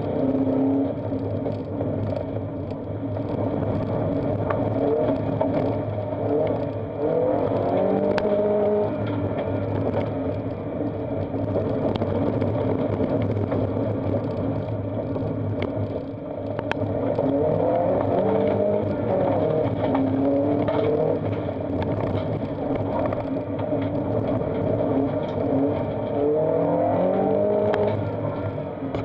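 Subaru Impreza's flat-four boxer engine under hard driving on a gravel slalom course, heard from inside the car: the revs climb and fall back again and again as it accelerates, shifts and brakes between gates. Loose gravel ticks and clatters against the body.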